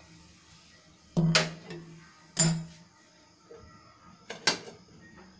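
Stainless-steel tumblers knocking down onto a kitchen counter: two sharp metallic clanks a little over a second apart, then a lighter double knock near the end, each ringing briefly.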